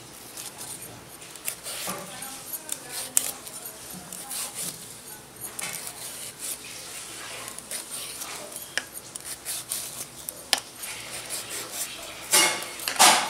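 Metal vegetable peeler scraping strips of peel off a raw green banana in repeated short, irregular strokes, with a louder burst of noise near the end.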